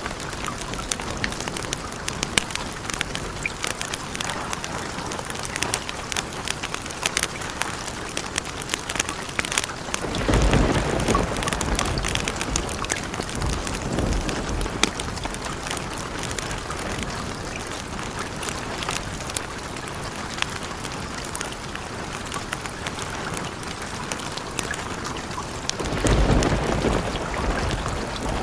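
Steady heavy rain, dense with sharp drop ticks. Thunder rumbles low about ten seconds in, and again near the end.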